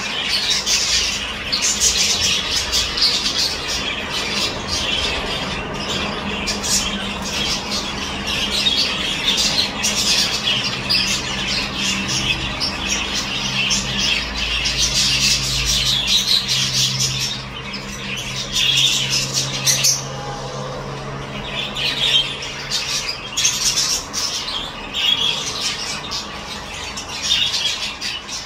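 Peach-faced lovebirds chattering, a constant stream of high, scratchy squawks and chirps. A low steady hum runs underneath for a stretch in the middle.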